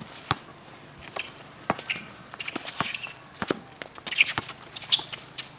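A basketball bouncing on a concrete court as players dribble and move, with irregular knocks of the ball and feet and a few short sneaker squeaks in the second half.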